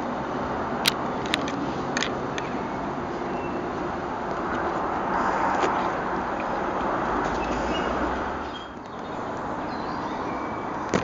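Southern electric multiple-unit train running away down the line, a steady rumble of wheels on rail, with a few sharp clicks about one to two seconds in.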